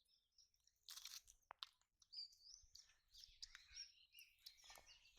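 Near silence, with faint bird chirping and a few soft clicks.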